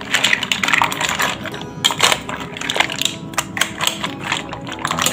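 Mussel shells clattering against each other and the stainless steel pot as they are stirred with a spoon: a rapid, uneven run of sharp clicks.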